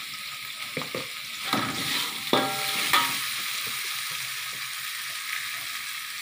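Spice paste sizzling steadily in a wok while a metal ladle stirs and scrapes through it. There are a few knocks of the ladle against the pan, the loudest two ringing briefly about two and a half and three seconds in.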